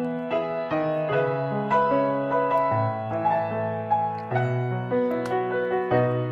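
Background piano music: a melody of short notes, a few a second, over held low bass notes.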